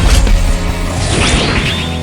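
Action soundtrack music under fight sound effects: a heavy booming impact at the start, then a high whooshing effect about a second in.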